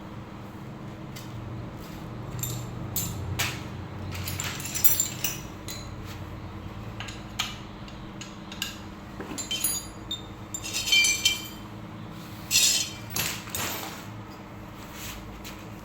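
Metal parts clinking and knocking together as they are handled, in scattered sharp ringing clinks, the loudest two clusters past the middle, over a faint steady hum.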